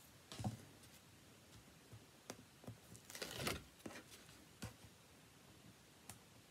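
Quiet handling of card stock and double-sided tear and tape: brief rustles as the backing strip is peeled and the card is pressed down, the longest about three seconds in, with a few light taps on the table.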